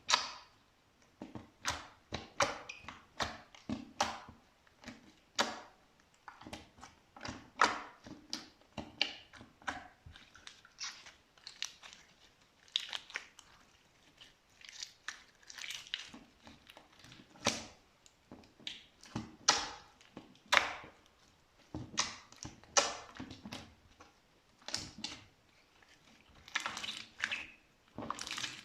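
Slime being pressed, squeezed and folded by hand, giving irregular short squelches, pops and crackles, several a second at times, with brief pauses.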